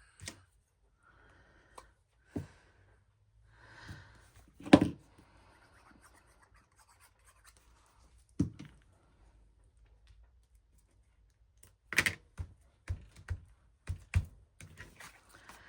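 Paper and craft pieces handled on a work table: soft scraping and rustling in the first few seconds, then scattered knocks and taps, the loudest about five seconds in and a quick cluster near the end.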